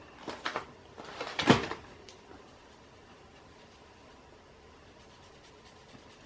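A few clatters and knocks of small items being picked up and set down on a hard surface, the loudest a sharp knock about a second and a half in, followed by quiet room tone.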